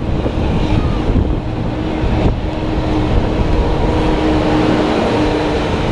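Parking-lot tram in motion: a steady engine and road rumble with a faint held tone running through it.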